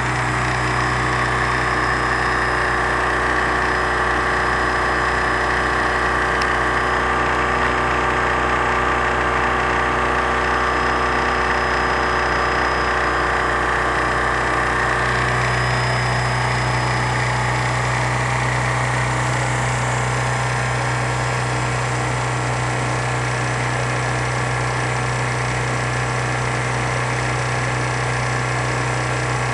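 Kohler 5E 5 kW marine gasoline generator running steadily, a constant engine hum whose low drone grows stronger about halfway through.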